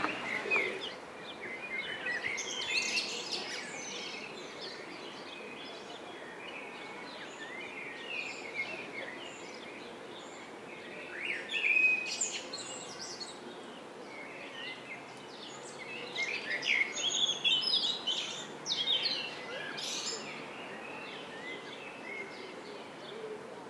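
Small songbirds chirping and singing, many short calls and quick up-and-down notes, busier in a few spells, over steady background noise.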